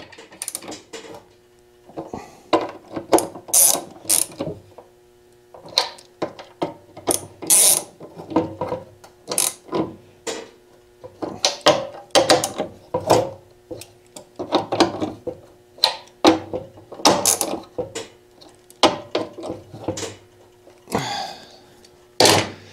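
Hand socket ratchet clicking in quick runs with brief pauses as it is worked back and forth on the mounting bolts of a motorcycle gas tank's fuel sending unit plate.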